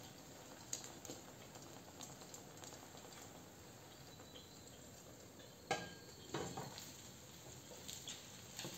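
Eggs and sausage slices frying gently in a nonstick pan: a faint sizzle with small crackles. About two-thirds of the way in comes a sharp knock with a brief ring, then a short clatter, as kitchenware is handled against the pan.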